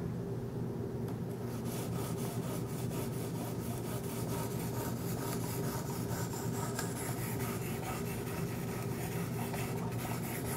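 Fine 1200-grit ceramic sharpening stones of a Wicked Edge guided sharpener rubbing steadily along a Kershaw Skyline's 14C28N steel blade, a continuous light scraping as the edge is refined.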